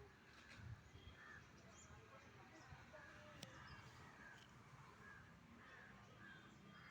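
Faint outdoor chorus of short bird calls, several a second, over a low background rumble, with one sharp click about three and a half seconds in.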